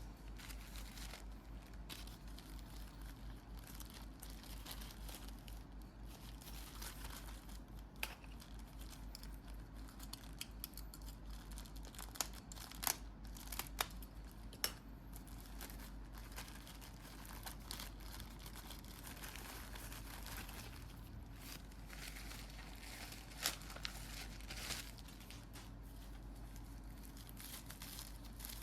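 Packaging being handled and opened: crinkling and rustling with scattered sharp clicks and taps, a cluster of them about halfway through and another near the end.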